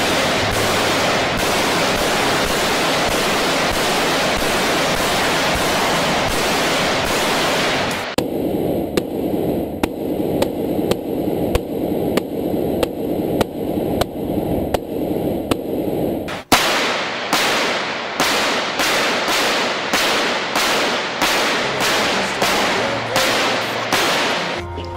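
Repeated rifle fire from an AK-style rifle, the rounds striking an armored SUV's bullet-resistant windshield. First comes a dense run of overlapping shots. A muffled stretch follows, heard from inside the car's cabin with shots about every half second. Near the end come loud separate shots, about two a second, each ringing off.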